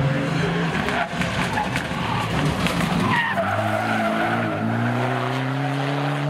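Mitsubishi Lancer Evolution rally car taking a tight hairpin, tyres squealing and skidding through the corner. About three seconds in, its turbocharged four-cylinder engine accelerates hard away, rising steadily in pitch.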